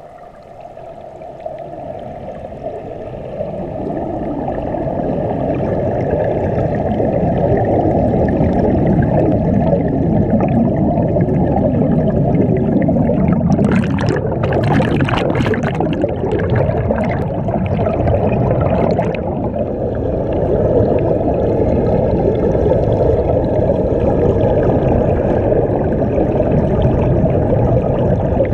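Muffled, churning water and bubbles heard underwater through a camera's waterproof housing: a dense low rushing that builds over the first few seconds and then holds steady, with a crackling fizz from about 13 to 19 seconds in.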